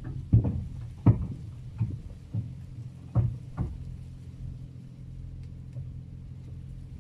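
About six heavy knocks on the steel formwork panels in the first four seconds, the loudest two close together near the start, over the steady running of a mini excavator's diesel engine.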